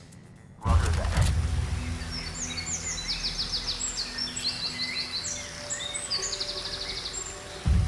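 Mobile phone ringtone of bird chirps and quick trills over a low steady bass hum, coming in suddenly about half a second in, with a heavier low swell near the end.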